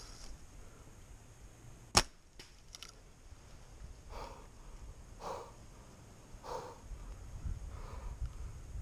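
Bear Cruzer G2 compound bow shot: the string is released once about two seconds in, a single sharp crack that is the loudest sound, followed by a couple of faint clicks.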